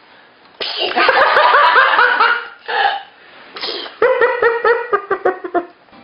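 A sneeze followed by a bout of rhythmic laughter, then a second sudden burst and more laughter.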